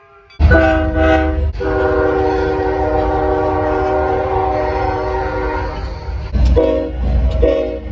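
Train horn sounding a chord of several notes: a short blast about half a second in, a long blast of about four and a half seconds, then two short blasts near the end, over a low rumble.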